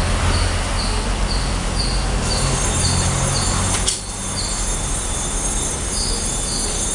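A train-like sound: a steady rushing rumble with high squealing tones and a short high beep repeating about twice a second. About four seconds in there is a sharp click, and the rumble dips briefly.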